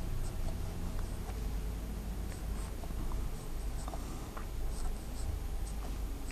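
Marker pen writing on a whiteboard: short scattered squeaks and taps of the felt tip against the board as letters are drawn, over a low steady room hum.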